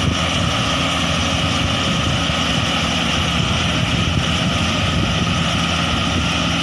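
Daedong DSC 62G half-feed combine harvester running steadily, a loud, even machine drone with no change in speed.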